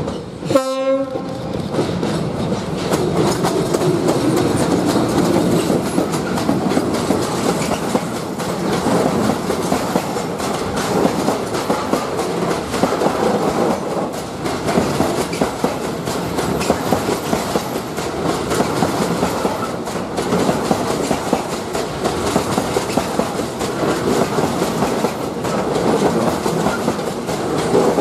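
A train horn gives one short blast about half a second in. A train then passes close by with a steady, loud rolling noise of wheels on rail.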